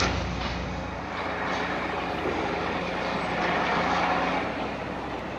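Heavy diesel engine running steadily, a low drone under a dense rushing noise.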